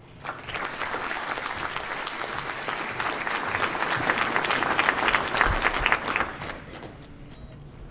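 An audience applauding, many hands clapping; the applause swells, then dies away near the end.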